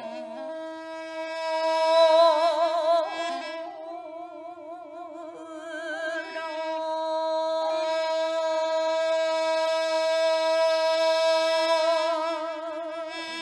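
Korean sijo singing: a woman's voice holding long notes with a wide, slow vibrato, accompanied by a sustained tone from a small Korean wind pipe.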